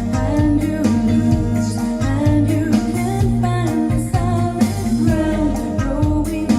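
A song with a singer over guitar, strong bass and a steady beat, played back through JBL LX70 three-way bass-reflex tower loudspeakers.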